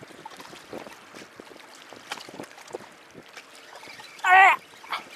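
Faint clicks and handling noise from a spinning fishing reel being turned and fiddled with by hand. About four seconds in comes a short, loud voiced sound.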